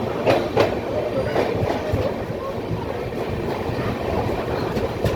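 Passenger train running along the track: a steady rumble of wheels on rail, with a few sharp clicks, two close together about a third of a second in and another near the end.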